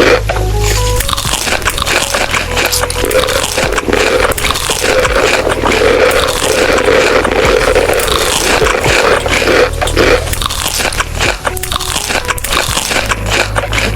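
Close-miked biting and chewing of crunchy food, a dense run of crackly crunches.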